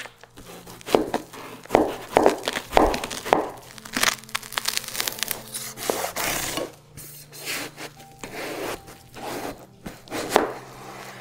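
Kitchen knife cutting through a watermelon on a cutting board: irregular crunching and cracking as the blade splits the rind and the juicy flesh, densest midway through.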